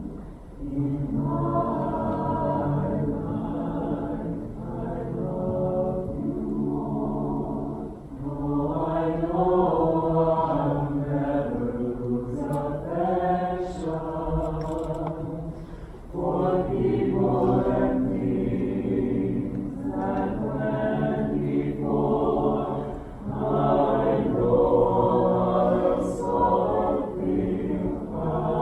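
Choir singing in several parts, in long sung phrases with short breaks between them.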